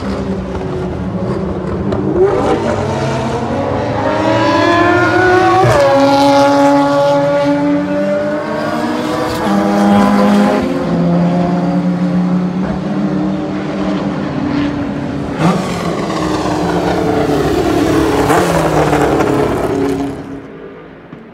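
Race car engines at full throttle passing along a straight, their note rising in pitch through each gear and dropping sharply at each gear change, with more than one car heard at once. A single sharp crack about fifteen seconds in, and the engine sound falls away near the end.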